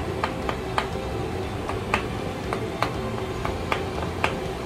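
Light taps of a wooden mallet on the side of a steel spindle flange plate: about a dozen short knocks at uneven intervals. The taps nudge the loosely bolted flange into concentricity with the spindle while a dial indicator is read.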